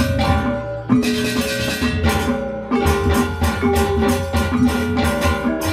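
Balinese gong kebyar gamelan playing: bronze metallophones struck in fast interlocking figures over kendang drums and a small time-keeping gong. The ensemble thins out briefly and comes back with a loud unison stroke about a second in.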